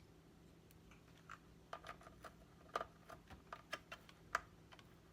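Light, irregular plastic clicks and taps from handling the DJ controller's plastic casing and screws during reassembly.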